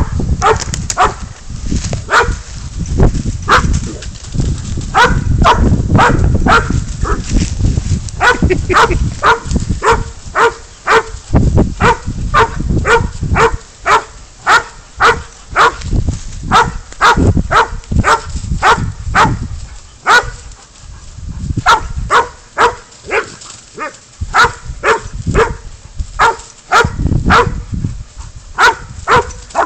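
Pig dog baying a goat: a long run of short, loud barks, about two a second, with brief pauses.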